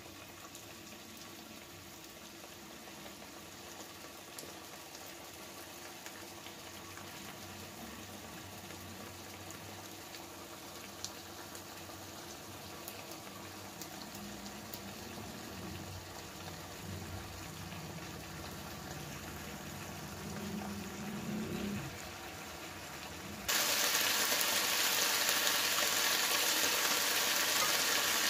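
Pork chops cooking in their soy and oyster sauce marinade in a pan with no oil: the liquid bubbles quietly and grows slowly louder. About 23 seconds in it jumps suddenly to a loud, steady sizzle of the chops frying as the pan runs nearly dry.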